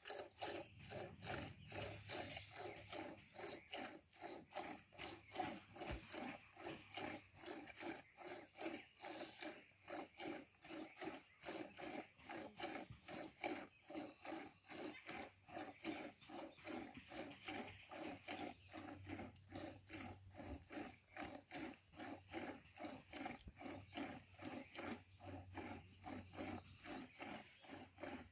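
Milk squirting into a plastic jug as a cow is milked by hand, in a steady rhythm of about two to three squirts a second.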